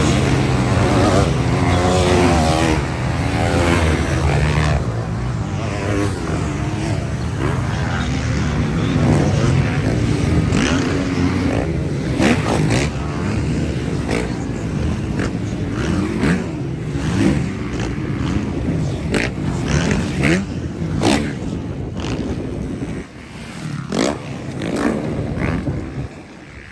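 Several motocross bikes racing, their engines revving up and down through the gears as riders pass one after another; the sound is densest at first and thins out near the end as the pack moves away.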